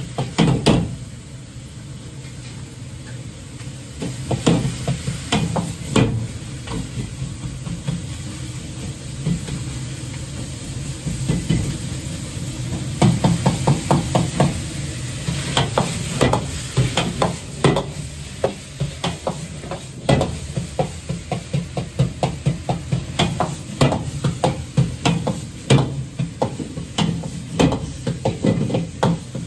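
A ladle clatters and scrapes in a wok as minced pork is stir-fried, with sizzling over a gas wok burner's steady roar. The ladle strikes come in quick runs of several a second, mostly in the second half.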